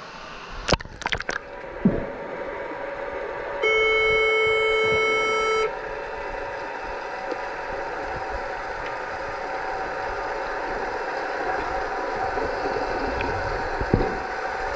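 Underwater hockey referee's underwater buzzer sounding one steady horn tone for about two seconds, heard through the water, the signal that stops play. Before it, splashing as the camera goes under; a steady underwater hiss lies beneath.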